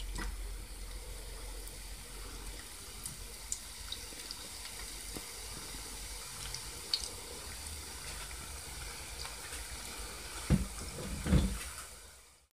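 Small cubes of flour dough deep-frying in moderately hot oil in a pan: a steady sizzle with a few faint pops. Two low thumps near the end.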